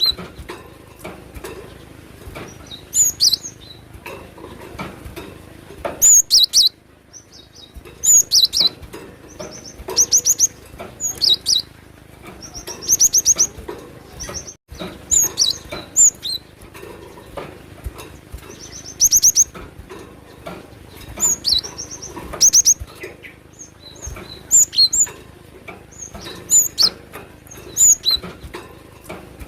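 Cinereous tit (glatik batu) singing energetically: short bursts of rapid, high, ringing notes repeated every second or two.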